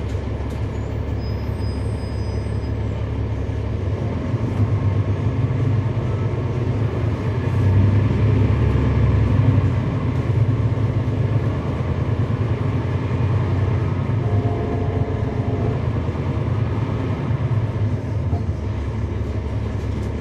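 Cummins ISL9 inline-six diesel engine of a 2011 NABI 416.15 transit bus, heard from on board while the bus is under way, with a steady low drone and road noise. It grows louder about four seconds in, is loudest around eight to ten seconds in, then eases off.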